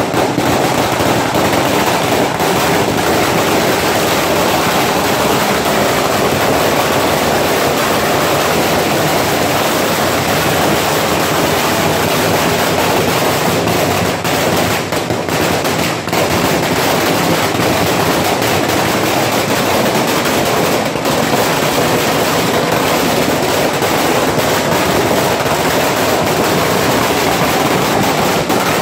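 Long strings of firecrackers laid on the ground going off in a dense, unbroken crackle of rapid bangs, with only a few momentary lulls.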